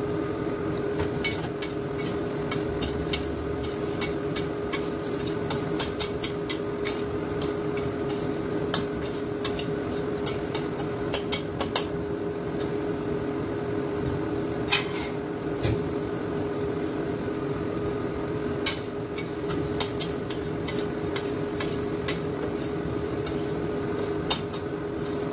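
Shrimp sizzling in a stainless steel wok while a metal spatula stirs them, clinking and scraping against the pan at irregular intervals. A steady hum runs underneath.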